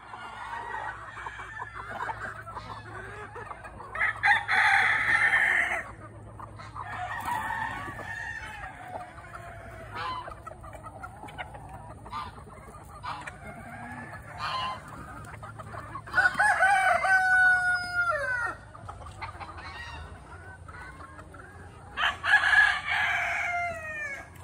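Roosters crowing three times, each crow about two seconds long: about four seconds in, midway through and near the end, the later crows falling in pitch at their tails. Hens cluck in short calls between the crows.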